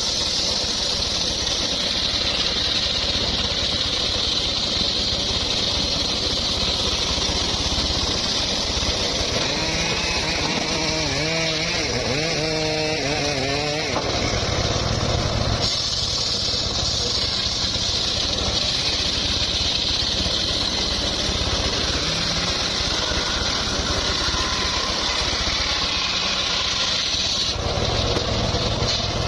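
Engine-powered wood saw running steadily while cutting mahogany, with a continuous high hiss from the cut that drops out briefly about 14 seconds in. A wavering pitched sound rises and falls for a few seconds just before that.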